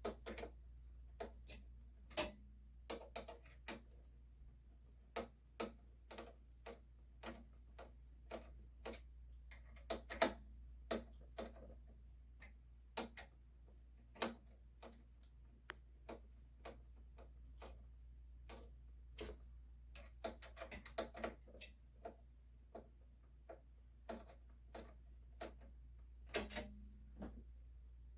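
Irregular small clicks and ticks of a screwdriver gently tightening the mounting screws of a Noctua CPU heatsink, with a few sharper knocks among them, over a faint low hum.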